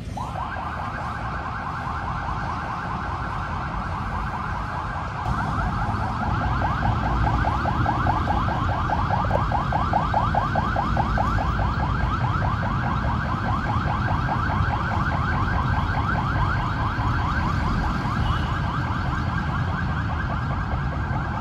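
A fast, evenly pulsing tone in the middle pitch range, starting suddenly and going on without a break, over a steady low rumble that grows louder about five seconds in.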